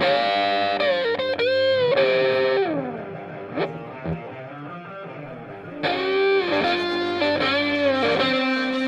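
Music: a distorted electric guitar playing a lead line with bent notes, in two phrases with a quieter gap in the middle.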